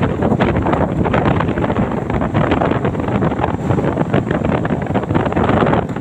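Wind buffeting the microphone of a moving camera: a loud, steady, fluttering rumble.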